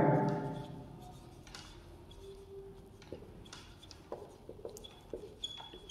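Faint felt-tip marker strokes on a whiteboard: short, scattered scratches and light taps as words are written.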